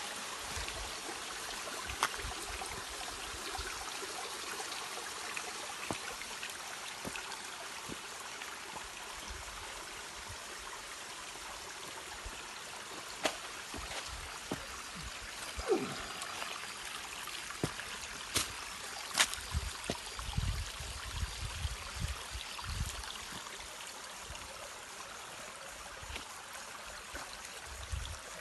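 Steady rushing water of a waterfall and stream. A few sharp clicks, a short falling tone about halfway, and low bumps in the second half sit over it.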